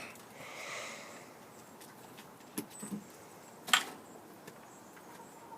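Soft rustling, then a few sharp taps, the loudest a little past the middle.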